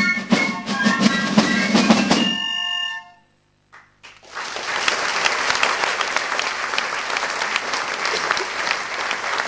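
A piccolo and drum band playing the last bars of a Fasnacht march, ending on a held chord about three seconds in. After a second of silence the audience breaks into steady applause that carries on to the end.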